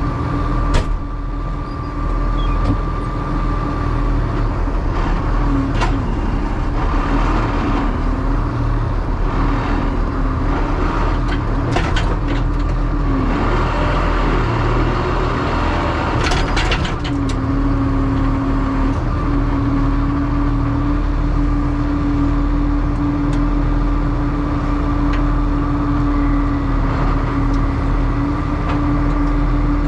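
Heavy farm machinery running steadily with a deep, constant hum, and a few sharp clicks and knocks now and then.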